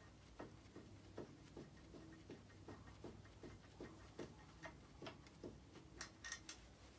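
Faint, even ticking, about two and a half ticks a second, with a few sharper clicks near the end.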